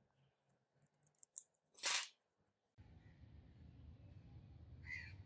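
Small metal clicks and one sharp snap as a pin is pressed into a gold-tone watch bracelet link with tweezers. After about three seconds a steady low outdoor rumble sets in, with a short high chirp near the end.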